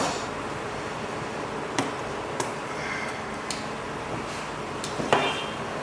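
A phone's retail packaging box being handled and worked open: a few sharp light clicks and taps, the last one near the end the loudest, over a steady background hiss.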